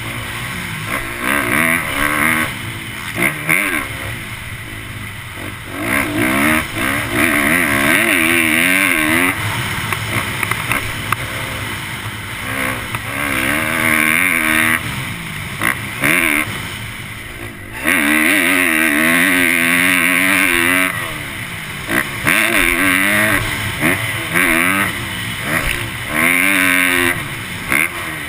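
Motocross dirt bike engine revving hard and dropping off again and again as the bike accelerates down straights and backs off for turns, heard from the rider's helmet.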